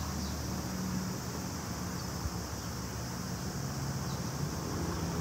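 Steady outdoor background noise: a low hum carrying a few steady tones, under an even high-pitched hiss.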